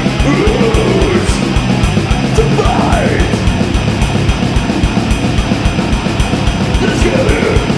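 Death metal/grindcore music: heavily distorted guitars over rapid, relentless drumming.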